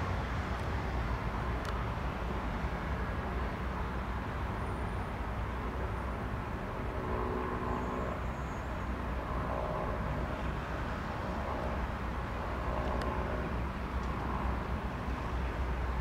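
Piper PA-46 350P's turbocharged six-cylinder piston engine running at taxi power, heard at a distance as a steady low rumble. A faint engine hum comes through more clearly in the middle.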